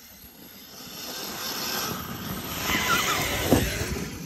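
Arrma Kraton RC monster truck driving on its brushless motor, with a whine that wavers in pitch as the throttle changes. It grows louder as the truck approaches and is loudest about three and a half seconds in.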